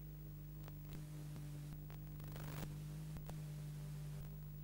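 VHS tape playback over a blank stretch of tape: a steady low hum with hiss and scattered faint clicks and crackles.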